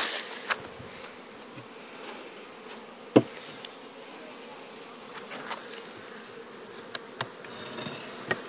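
Honeybee colony buzzing steadily from an opened hive, the bees stirred up and defensive, which the beekeeper puts down to their drone-laying queen. A few sharp knocks break through, the loudest about three seconds in.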